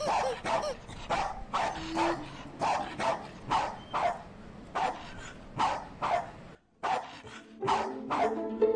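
A dog barking in short, repeated yaps, about two a second, with a brief pause late on. Music starts near the end.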